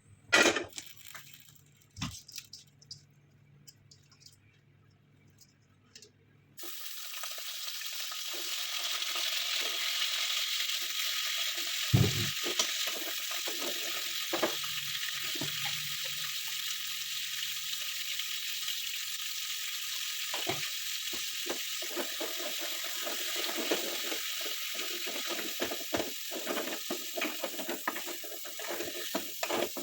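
Boiled pork pieces going into hot oil in a pan: a few knocks, then about six seconds in a steady sizzle starts suddenly and carries on, with scattered clicks and knocks from stirring.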